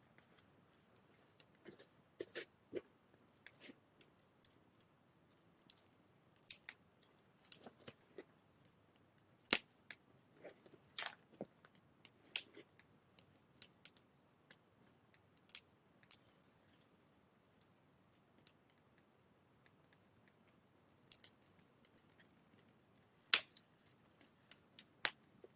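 Wood fire crackling: irregular sharp pops and snaps from burning firewood, a few much louder than the rest, over a quiet background.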